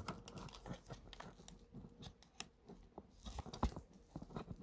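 Faint handling noise: scattered light clicks and rustles as a small angle-grinder accessory part is turned over in the hands, with a slightly louder knock about three and a half seconds in.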